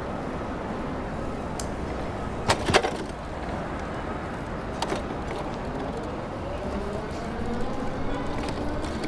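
City street noise heard from a moving bicycle: a steady rush of traffic and wind. Sharp knocks come twice, about two and a half seconds and five seconds in, and from about two-thirds of the way through a vehicle engine rises slowly in pitch as it accelerates.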